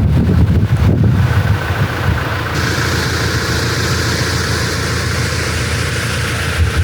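Vehicle engine and road noise heard while driving: a steady low rumble with a faint constant drone, getting hissier about two and a half seconds in.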